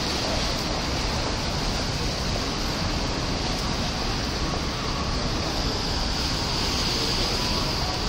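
Steady city street noise: a constant hiss of traffic on wet roads.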